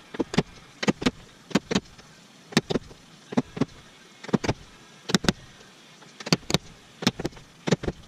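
Small hammer tapping a center punch against the hood of a Jeep Wrangler JK to mark the hole locations for drilling. Sharp taps, mostly in pairs, about one pair every three-quarters of a second.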